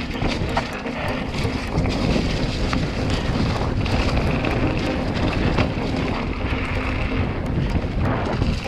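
Wind buffeting an action camera's microphone while an electric mountain bike rolls down a rough dirt trail, with frequent small knocks and rattles from the bike over the bumps and a faint steady hum underneath.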